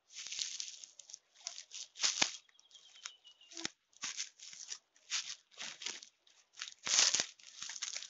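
Dry forest-floor litter and old fern debris crackling and rustling underfoot as someone walks through a stand of ostrich ferns, with fronds brushing past: irregular crunching rustles, two or three a second, the loudest about two seconds in and near the end.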